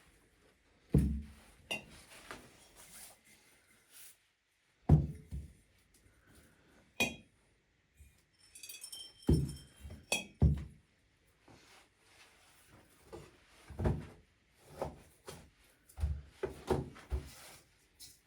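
Irregular thunks and knocks of kitchen handling, with a brief run of glass clinks about nine seconds in: salted pork fat being handled and packed into glass jars.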